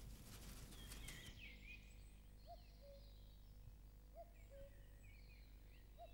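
Faint meadow ambience of birds chirping, with a soft two-note bird call repeating every second and a half or so. A brief faint crackling rustle comes in the first second.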